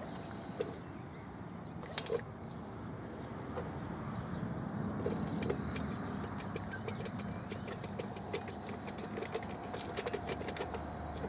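Small electric anchor-traction robot working its telescopic drive arm up a loose soil slope, with a faint steady motor whine. Loose stones and gravel click and rattle irregularly, most densely near the end.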